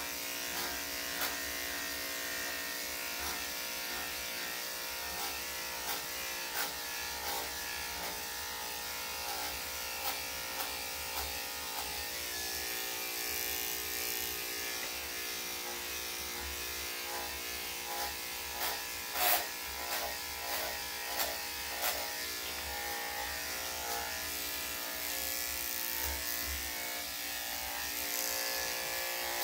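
Corded electric dog grooming clippers running with a steady buzzing hum while trimming a spaniel's coat, with a scatter of short clicks about two-thirds of the way through.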